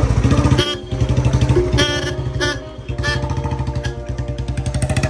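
Royal Enfield Bullet 350's single-cylinder engine running with a steady, rapid exhaust beat, freshly serviced. Music plays over it.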